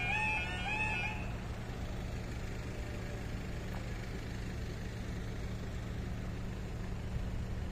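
Level crossing warning alarm, a warbling two-tone electronic yodel, cuts off about a second in as the barriers finish lowering. After it, a steady low hum carries on.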